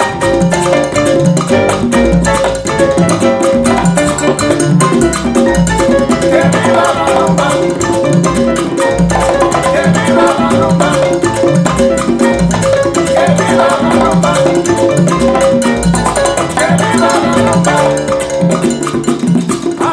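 Salsa music with a steady, repeating bass and percussion rhythm, played loud through Klipsch R-51M bookshelf speakers (1-inch horn-loaded tweeter and 5.25-inch woofer) and picked up by a microphone.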